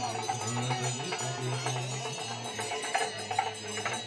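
Small bells jingling and ringing in short strikes over a steady low drone, with crowd chatter behind.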